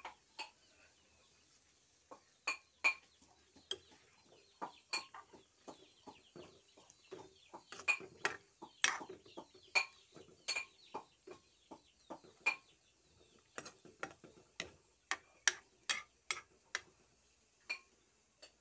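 Chicken and bottle-gourd curry boiling in an aluminium pan after water has been added, thick bubbles popping irregularly, two or three sharp pops a second over a faint fizz.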